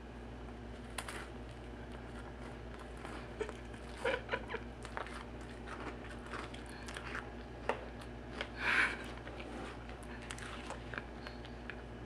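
A person chewing a mouthful of gooey marshmallow s'more: faint sticky, wet mouth clicks and smacks, with a few louder ones around four seconds in and just before nine seconds.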